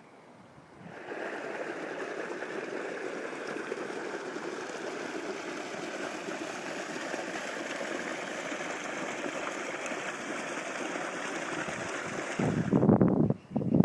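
Steady rush of flowing floodwater that starts abruptly about a second in. Near the end, a few loud, low rumbling bursts break in.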